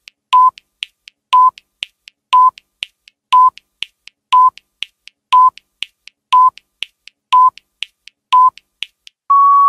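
Countdown timer sound effect: a short electronic beep about once a second, with faint quick ticks in between, ending in a longer, slightly higher beep near the end as the count runs out.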